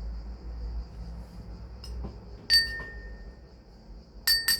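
A spoon clinking against a bowl while water and sugar are mixed: one ringing tap about halfway through, then a quick run of ringing taps near the end.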